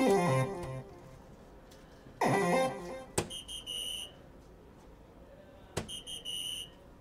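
Electronic sound effects from a soft-tip DARTSLIVE dart machine: two falling electronic sweeps, then two darts striking the board about two and a half seconds apart. Each strike is a sharp click followed by a short pulsed, high electronic chime for a triple 16 hit.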